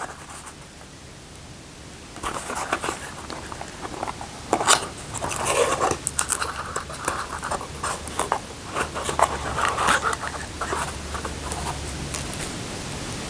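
Packaging of a small replacement part being handled and opened: irregular rustling, scratching and clicks, with one sharper click about a third of the way in.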